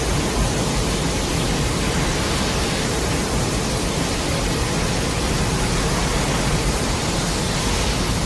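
Steady, even rushing noise with a deep rumble underneath, an altered Godzilla-film sound effect.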